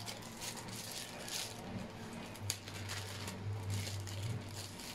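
Clear plastic packaging crinkling and rustling in short, irregular crackles as it is pulled open by hand to unwrap a small audio sound card.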